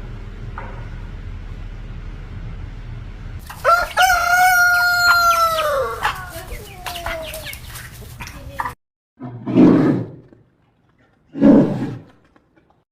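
A loud, drawn-out animal call starts about three and a half seconds in, holds one pitch for about two seconds and falls away at the end, over a low steady hum. Near the end come two short, low, gruff calls.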